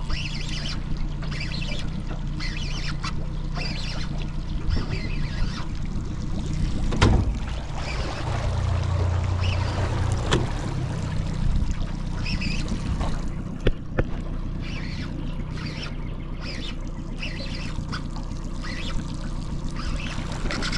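A steady low mechanical hum with water trickling and lapping over it, broken by a few sharp knocks about seven, ten and fourteen seconds in.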